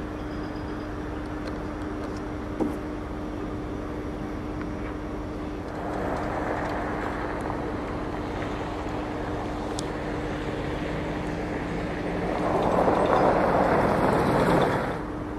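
Outdoor rushing noise over a steady low hum, typical of an idling vehicle with wind on the microphone. The rush swells about six seconds in and grows much louder near the end, then drops off suddenly. There is a single click early on.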